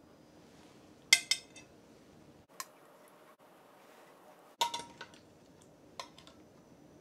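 Metal tongs clinking against a glass baking dish and a china plate as pork chops are lifted from one to the other. There are short, ringing clinks in groups: a pair about a second in, a single one, a cluster a little past halfway, and one more near the end.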